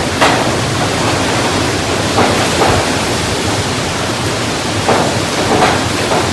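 Hurricane wind and heavy rain: a loud, steady rushing noise with several brief louder surges as gusts hit.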